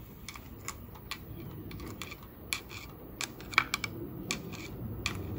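Irregular light metal clicks and rattles from the timing chain and sprockets of a Chrysler 440 V8 block as the chain is rocked by hand, with one sharper click a little past halfway. The chain has a lot of slack, in the owner's opinion, and is due for replacement along with the gears.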